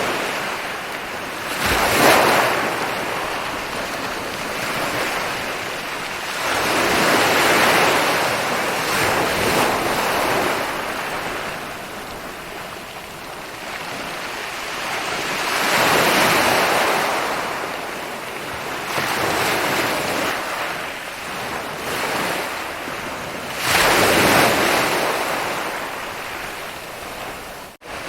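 Ocean surf on a beach: waves rolling in and breaking about four times, each surge swelling and then washing back. A brief sudden cut-out in the sound comes near the end.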